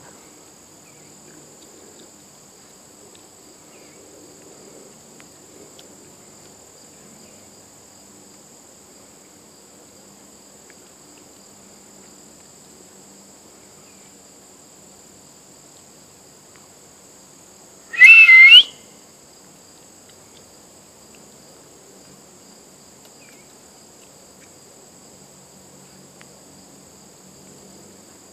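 Insects drone steadily at a high pitch across a summer field. About two-thirds of the way in comes one short, loud whistle with two rising notes, the loudest sound by far.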